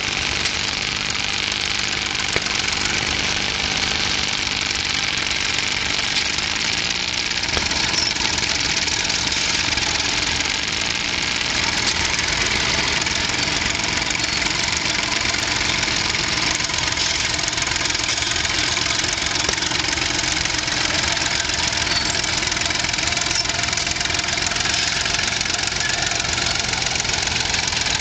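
Vintage crawler tractor and the engine on the elevating scraper it pulls, running steadily together under load as the rig works through the dirt.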